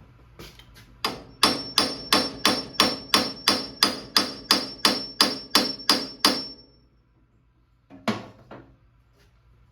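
A hammer strikes a steel steering-wheel puller about sixteen times, evenly at about three blows a second, each hit ringing. This is an effort to shock loose a tractor steering wheel seized on its shaft. A couple of softer knocks follow near the end.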